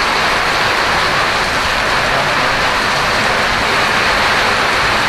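Heavy downpour: a steady, dense hiss of torrential rain falling on a wet paved road.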